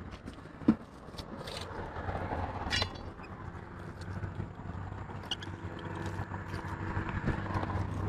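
Rusty scrap metal clinking and scraping as it is pulled off a fishing magnet by hand, with a sharp knock about a second in. A vehicle engine hums underneath and grows louder.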